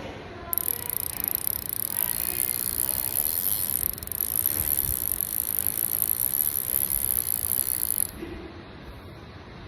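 Daiwa Exceler fishing reel clicking rapidly in a fast ratchet-like run. It starts suddenly, breaks briefly about four seconds in, and cuts off suddenly about eight seconds in.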